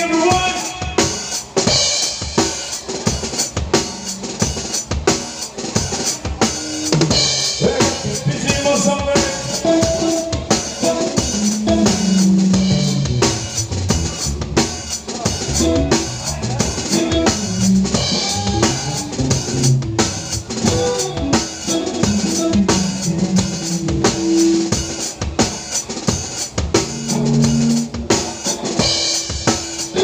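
Drum kit played live in a band, with kick and snare hits in a steady beat and cymbal crashes, the drums loudest over a bass line and other instruments.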